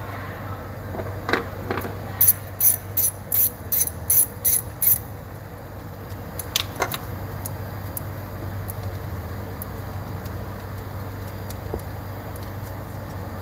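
Hand ratchet clicking, about three sharp clicks a second for some three seconds, with one more click a little later, as a coil-pack bolt is worked on the engine. A steady low hum runs underneath.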